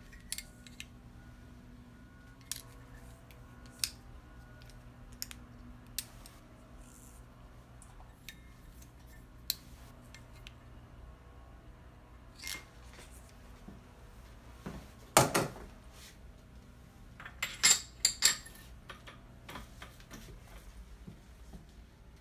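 Metal clicks and clinks from handling a turned steel part and a digital caliper, with a louder clatter about two-thirds of the way through and again a few seconds later. A faint steady low hum runs underneath and stops near the end.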